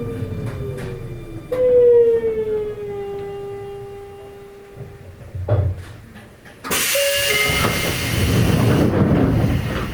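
Sotetsu 8000 series train's Hitachi IGBT-VVVF inverter whine falling in pitch as the train slows: the sign of braking. Near the end a sudden, loud burst of compressed-air hiss sounds with a low rumble underneath.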